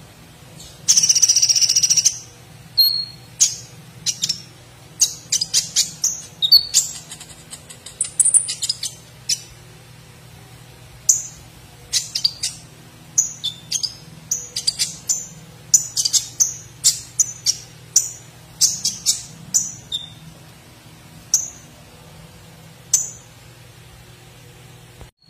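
Caged male purple-throated sunbird (kolibri ninja) singing hard: a loud, high burst about a second in, then a long run of short, sharp, high chirps and trills. The song is one trained with imitated woodpecker calls.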